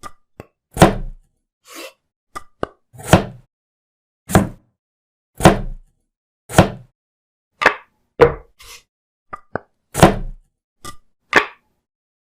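A series of sharp knocks and whacks, about one a second with lighter ticks in between, each cut clean with dead silence between them: stop-motion sound effects made by striking with kitchen utensils.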